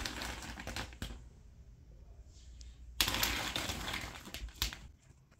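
Plastic felt-tip markers clicking and clattering against each other as hands rummage through a pile of them. It goes quiet for a couple of seconds, then starts again more loudly about three seconds in.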